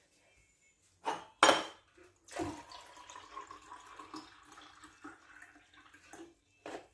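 Two sharp knocks as a stainless-steel tumbler is handled on the counter, then water running from a water dispenser's spigot into the steel tumbler for about four seconds, ending with a short click.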